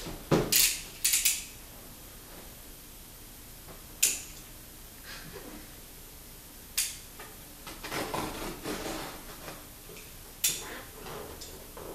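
Sharp clicks and knocks of a cardboard box and a small hand tool being handled on a glass-topped table: a quick cluster about a second in, then single clicks every few seconds, with a spell of scraping and rustling at the box about eight seconds in.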